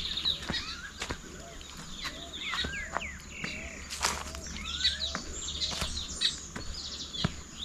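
Several birds calling in riverside scrub: many short whistled chirps rising and falling in pitch, overlapping throughout, with a few sharp clicks scattered among them.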